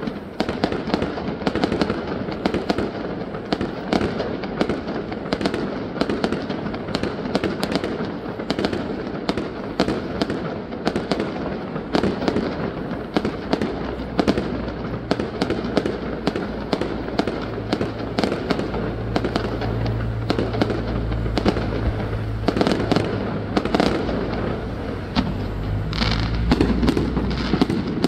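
Fireworks going off in a dense, continuous barrage of rapid bangs and crackling pops.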